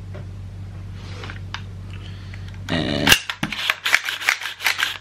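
AR-15 pistol being cleared: the charging handle is pulled and the bolt worked and locked back, giving a short handling rustle and then a rapid run of sharp metallic clicks and clacks in the last two seconds.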